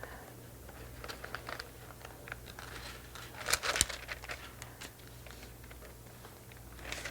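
Thin Bible pages being turned and rustled while a passage is looked up: scattered soft rustles and clicks, the loudest flurry about three and a half seconds in, over a steady low electrical hum.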